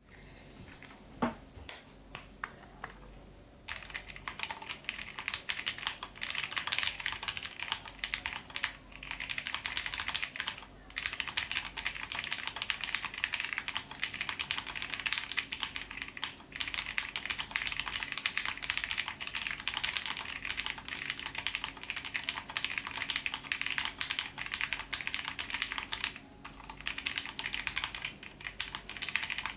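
Steady fast typing on a TGR Jane v2 CE mechanical keyboard fitted with lubed and filmed vintage Cherry MX Brown switches, an FR4 half plate and black PPS keycaps. A few single key clicks come first, then dense continuous typing starts about four seconds in, with a couple of brief pauses.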